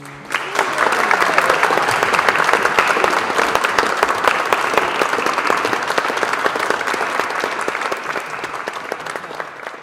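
Audience clapping as the music stops. The applause starts about half a second in and tails off near the end.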